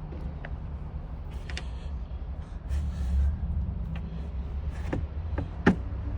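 Light clicks and knocks from handling a car's turn signal light assembly, its plastic parts being fitted back into place, with a sharper knock near the end. A steady low rumble runs underneath.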